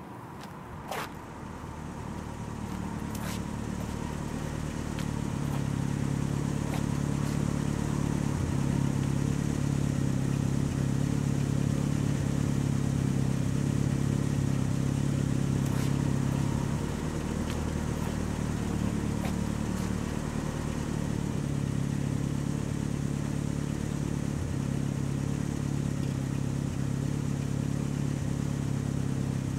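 A car engine running with a steady low hum that builds over the first few seconds, holds even, and turns a little quieter just past the halfway point.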